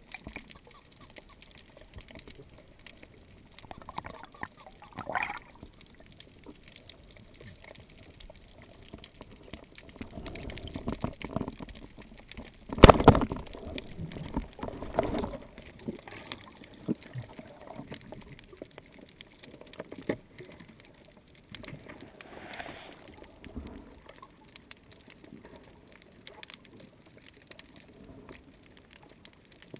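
Speargun firing underwater: one sharp, loud crack a little before halfway through, amid a few seconds of knocking and clatter, over faint underwater hiss and occasional gear knocks.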